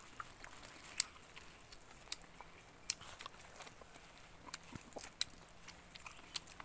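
Close mouth sounds of eating roast chicken by hand: chewing, biting and lip-smacking, heard as scattered sharp smacks and clicks a second or so apart.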